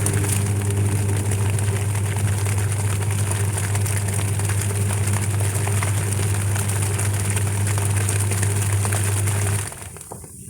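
Washing machine running: a steady low motor hum over a rushing hiss. It cuts off suddenly near the end.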